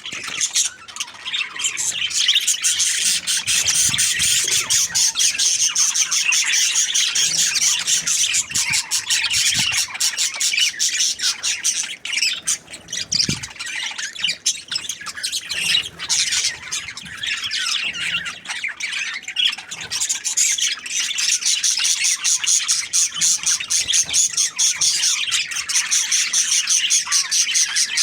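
Budgerigars chattering without pause, a dense run of rapid high chirps and squawks.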